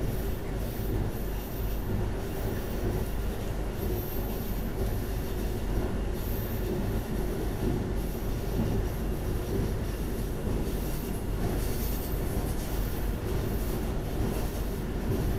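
Pesa 218Mc diesel train heard from inside while running at speed: a steady low rumble of engine and wheels on the rails, with a faint high squeal coming and going.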